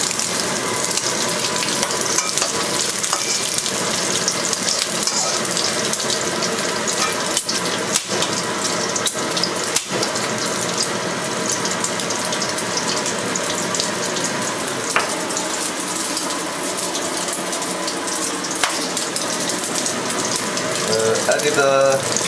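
Cubes of fat pork sizzling and crackling in hot oil in a wok, stirred now and then with a spatula, with a few sharp clicks.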